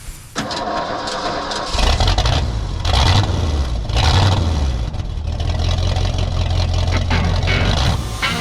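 A motor engine running with a low, steady drone, revving up a few times in the first half.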